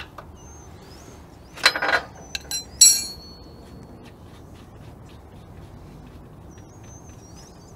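Metal clinks and rattles of a wrench working the small hydraulic cap off an engine oil drain-line fitting: a quick cluster about two seconds in, then a sharper clink that rings briefly. Birds chirp faintly.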